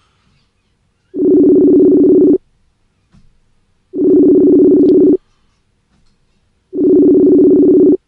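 Ringback tone of an outgoing phone call, a steady low two-note tone sounding three times, each a little over a second long, with pauses between: the call is ringing on the other end, not yet answered.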